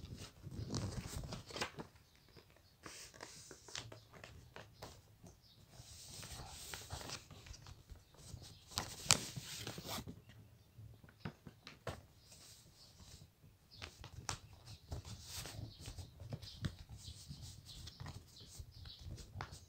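A sheet of white paper being folded by hand: irregular rustling and crinkling with short, sharp creasing swipes, the sharpest about nine seconds in.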